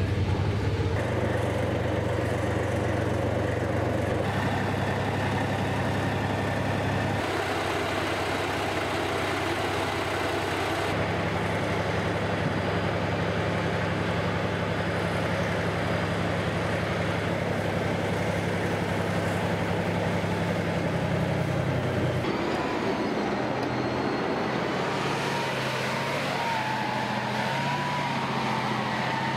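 Diesel engine of a TOS-1A launch vehicle on a tracked tank chassis, running steadily, its low note stepping up and down every few seconds. In the last few seconds a higher, wavering whine joins it as the vehicle drives.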